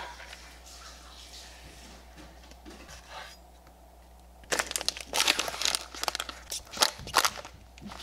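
Plastic food containers handled by hand while packing a lunch: faint handling sounds at first, then about three seconds of loud crinkling and crackling clicks from around the middle.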